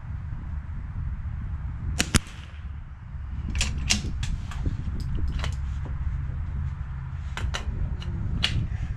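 A single .22 LR rifle shot about two seconds in from a Bergara B-14R bolt-action rimfire rifle, sharp and short. After it come two runs of quick metallic clicks as the bolt is worked.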